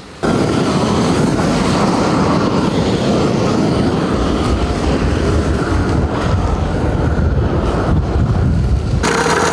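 Gas burner torch running steadily with a rushing flame noise as it heats and dries asphalt in a pothole. About nine seconds in it cuts abruptly to a small petrol engine running steadily.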